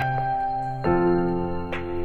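Soft instrumental background music with sustained keyboard-like tones; a new chord comes in about a second in and again near the end.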